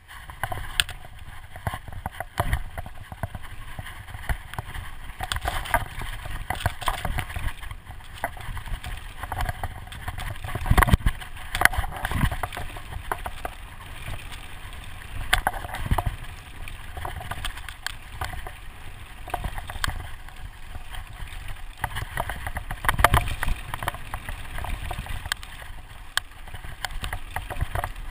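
Specialized Enduro Expert mountain bike descending a rough dirt trail at speed: a continuous rush of tyre and air noise with a low rumble, broken by constant rattling and sharp knocks of the bike over bumps, with the heaviest jolts about 11, 12 and 23 seconds in.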